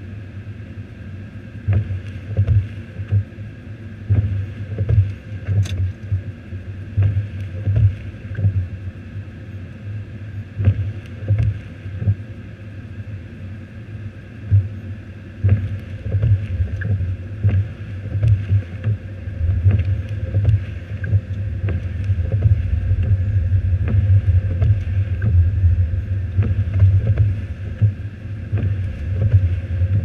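Low rumble inside a car's cabin in a snowstorm: the car's running engine and wind buffeting the car in irregular gusts. The rumble turns steadier and louder in the second half as the car drives off.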